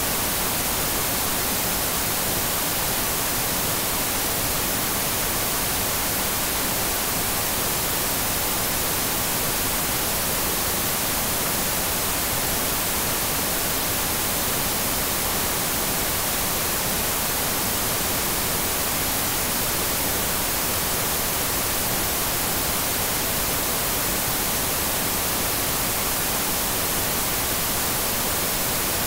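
Television static: a steady, even hiss that is strongest in the treble and never changes, the sound of an untuned analog TV.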